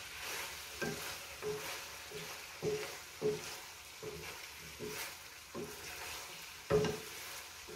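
A spatula stirring igado (pork liver, potato and green bell pepper) in a frying pan. The food sizzles steadily, and the spatula knocks and scrapes against the pan every half second or so, loudest near the end.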